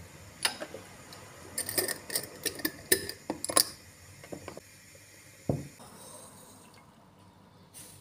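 A plastic scoop clinking and tapping against a glass storage jar as powder is scooped: a quick run of sharp clicks over about three seconds, then a single dull thump a little past the middle.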